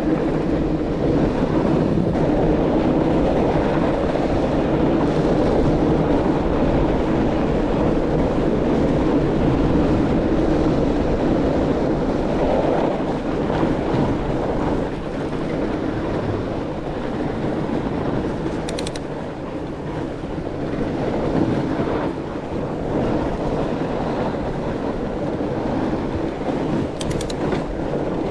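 Mountain bike ridden over packed snow: steady rolling noise from the tyres and the bike, quieter for a few seconds past the middle.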